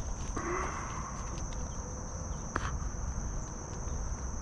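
Crickets trilling steadily in one high, even tone, with a few light clicks, a short scrape early on and a single knock about two and a half seconds in.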